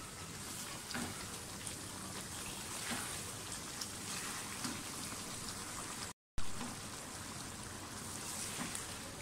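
Chicken masala bubbling and sizzling in a wok as it is stirred with a spatula, a steady spattering hiss with small scattered ticks. The sound breaks off completely for a moment about six seconds in.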